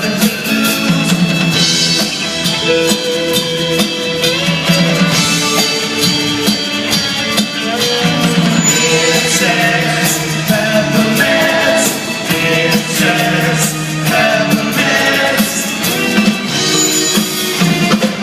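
Rock band playing live: singing over drums and sustained instrument chords, steady and loud throughout.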